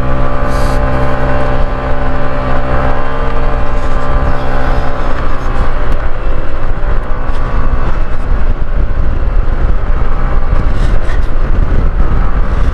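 Motorcycle engine running under load as the bike climbs a steep road uphill. Its tone is steady for the first few seconds and then grows rougher and shifts in pitch, with heavy low wind rumble on the microphone.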